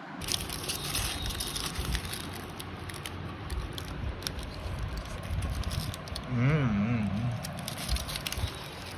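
Close-up eating sounds: chewing and crackling of food, with many small clicks, and a brief wavering hum about six and a half seconds in.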